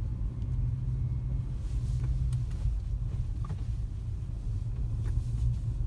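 Inside the cabin of a 2008 Honda CR-V with a 2-litre engine, driving: a steady low engine hum and road rumble, with a few faint clicks. No steering-rack knock stands out, the rattle having been cured by a new rack slipper and pressure spring.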